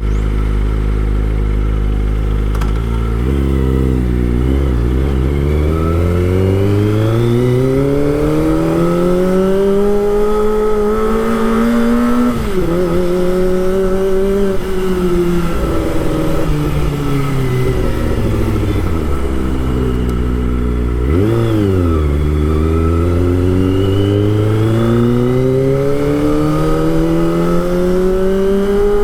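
Kawasaki Ninja ZX-25R's inline-four engine under way: low and steady at first, then rising slowly in pitch for several seconds, dropping sharply about twelve seconds in and sinking slowly, a quick blip up and down a little past twenty seconds, then climbing again.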